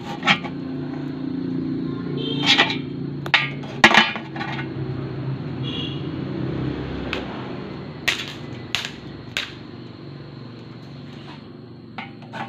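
Scattered clicks and knocks of plastic stand-fan parts being handled and fitted, about ten in all, over a steady low hum.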